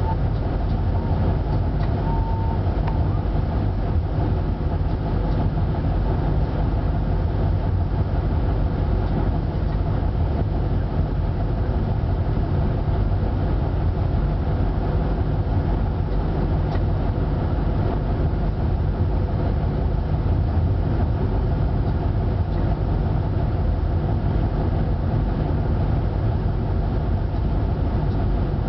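Vossloh G1000BB diesel-hydraulic locomotive running steadily, heard from its cab: a constant low drone of engine and wheels on rail, joined by the rumble of a loaded coal train of hopper wagons passing close on the next track.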